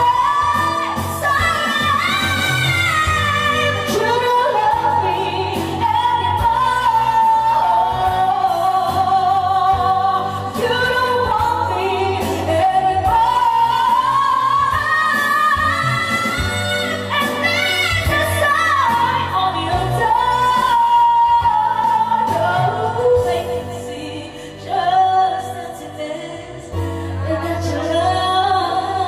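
A woman sings through a karaoke microphone over a backing track, holding long notes with vibrato.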